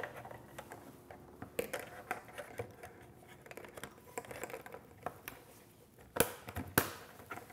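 Light heads of a Gotham MYO downlight being handled and snapped into the black plastic manifold frame: light plastic clicks and rustling of cables and gloved hands, with two sharper clicks close together near the end.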